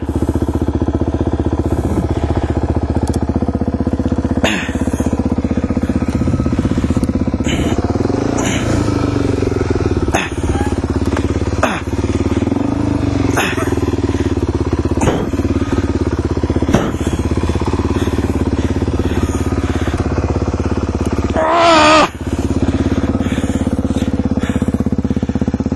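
Suzuki DR-Z400E dirt bike's single-cylinder four-stroke engine running continuously under the rider as he works through boggy mud, with a rise in revs about eight seconds in. Short sharp knocks recur every second or two, and a brief voice is heard near the end.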